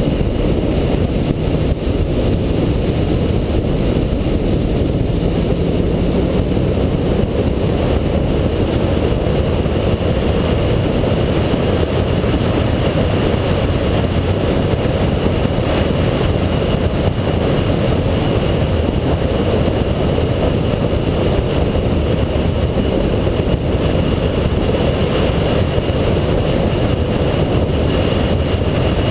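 A 2007 Ford Shelby GT500's supercharged 5.4-litre V8 at a steady cruise on track, mixed with heavy wind and road rumble. The rumble stays steady, with no revving or gear changes.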